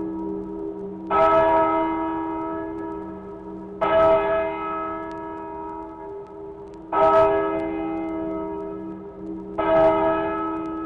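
A church bell tolling slowly: four strokes about three seconds apart, each ringing on and fading into the next.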